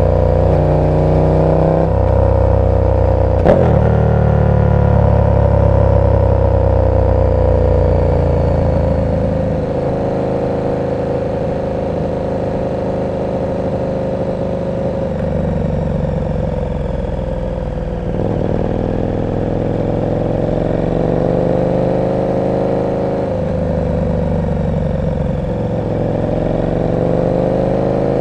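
KTM 1290 Super Duke R's V-twin with an aftermarket exhaust, riding in city traffic: the engine note repeatedly climbs in pitch and falls back as the bike accelerates, shifts and eases off, with a sharp click about three and a half seconds in.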